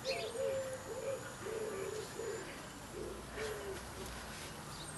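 A bird cooing in a run of short, low coos, repeating through the first few seconds, with a brief high chirp from another bird near the start.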